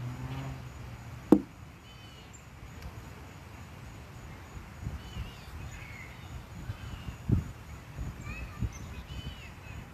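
A single sharp click about a second in, a plastic chess piece set down on the roll-up board on the picnic table, followed later by a few dull low thuds; birds chirp on and off throughout.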